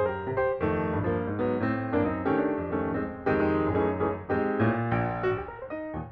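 Background piano music: a piano playing a flowing melody over chords.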